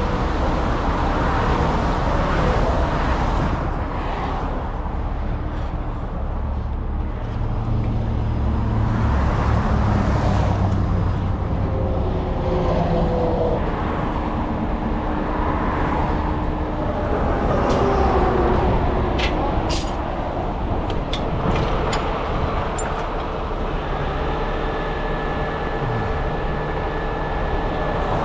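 Heavy truck's diesel engine running steadily with a low rumble. About two thirds of the way through there is a short run of sharp clicks and clinks.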